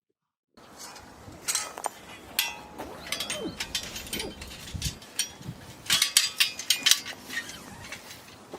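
Repeated sharp clinks and knocks of small hard objects being handled, some with a brief ringing tone like metal or glass, over a steady background noise that starts suddenly about half a second in.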